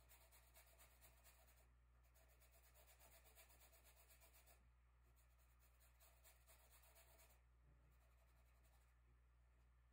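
Very faint scratching of a paintbrush working over a canvas board, in stretches of strokes a second or two long with short pauses between them. A steady low hum runs underneath.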